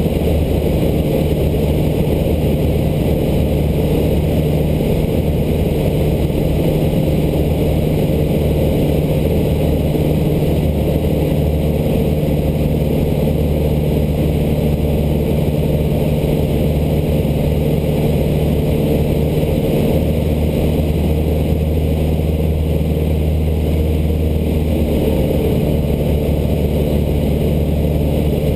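Cessna 152's Lycoming O-235 four-cylinder engine and propeller running steadily in flight, a constant loud drone heard from inside the cabin.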